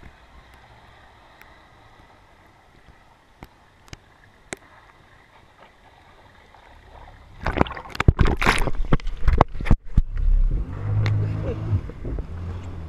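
Faint, muffled underwater sound of a submerged action camera with a few light ticks. About seven and a half seconds in, it gives way to loud knocking, rubbing and low rumbling as the camera is handled and pressed against skin and clothing.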